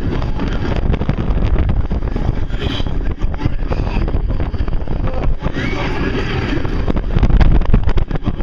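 Roller coaster ride from the front seat of a Hollywood Rip Ride Rockit X-car train: wind buffeting the microphone over the rumble of the train running along the track, louder near the end. A few short high cries from riders stand out briefly.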